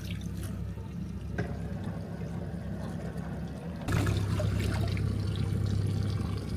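Boat engine running slowly with water gurgling and lapping, the engine getting louder about four seconds in.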